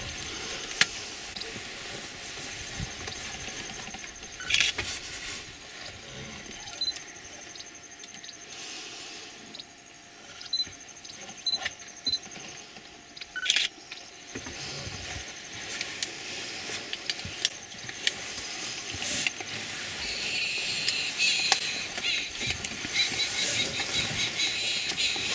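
Open-air ambience: a steady faint hiss with thin, high chirping calls that grow busier near the end, and a few sharp knocks.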